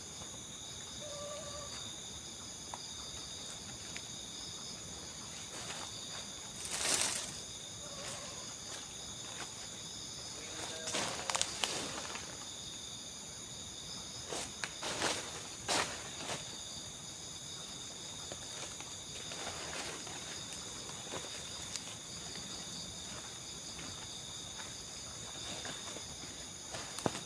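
Steady night insect chorus, crickets trilling together at several high pitches, with a few brief rustles or scuffs about 7, 11 and 15 seconds in.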